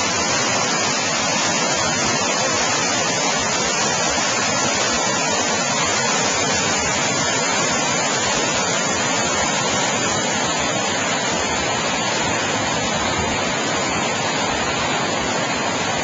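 Creek water rushing over rock ledges and small cascades, a steady, loud rush.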